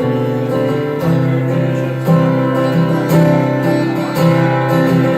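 Acoustic guitar strummed in an instrumental passage between sung lines, the chords changing about once a second.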